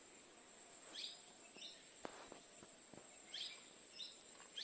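Faint, near-silent outdoor ambience with scattered short bird chirps, about one every second, over a thin steady high-pitched tone. A few faint clicks come about two seconds in.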